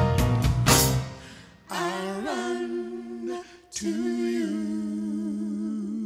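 Live gospel band ending a song: drums, cymbals and bass play a last stretch and stop about a second in, then voices hold long sung notes with vibrato, unaccompanied, breaking once near the middle.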